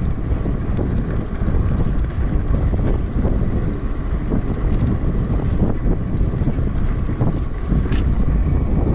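Wind buffeting the microphone, a steady low rumble, with one short sharp tick near the end.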